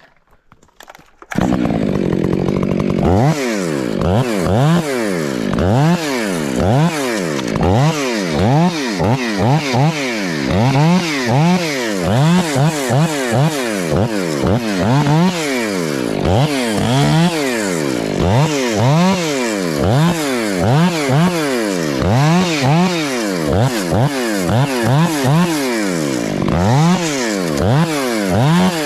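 Gas chainsaw starting up about a second in, then running hard with its pitch rising and falling over and over as the throttle is worked.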